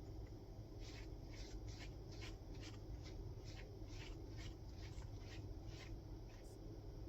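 A run of short scraping strokes, about three a second, starting about a second in and stopping near the end, over a steady low hum.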